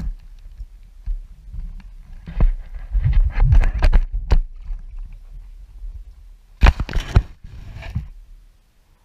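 Irregular knocks and thumps of a plastic kayak and camera bumping against a wooden dock during launching, in two bunches about three seconds in and again about seven seconds in, over low rumble of handling noise on the microphone.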